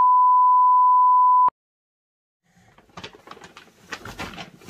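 A loud, steady electronic beep at one pitch from the intro animation, cutting off sharply with a click about a second and a half in. After a short silence come faint rustles and knocks of a large paper shopping bag being handled.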